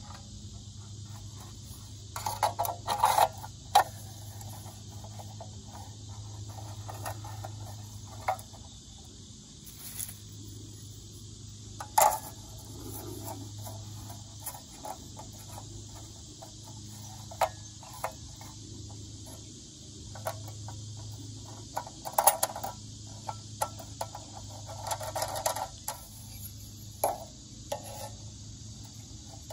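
Thin metal stove panels clinking, tapping and scraping as they are handled and slotted together into a small rocket stove. The sharpest clanks come in a cluster a few seconds in, once near the middle and again in clusters toward the end, over a steady drone of insects.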